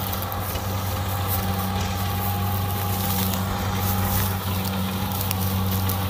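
Kubota DC70 combine harvester running steadily as it drives through and cuts rice, an even engine hum with scattered clicks and rattles.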